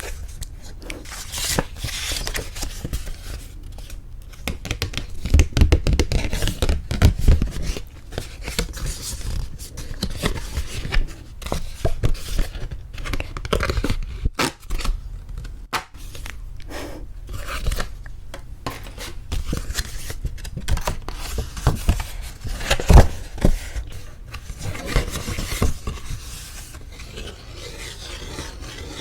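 Paper wedding invitation cards and envelopes handled close to the microphone: continuous crinkling, rubbing and scraping of card and paper with small clicks. The handling is louder about five to eight seconds in, and there is a sharp tap about three-quarters of the way through.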